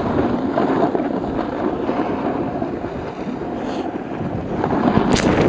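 Wind rushing over the camera microphone while riding down a groomed ski slope, mixed with the hiss of snow sliding under the rider, and a short sharp scrape on the snow near the end.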